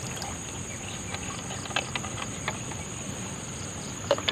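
Steady, high-pitched insect chorus, with a few light taps and knocks from a bamboo prawn trap being handled, the sharpest ones near the end.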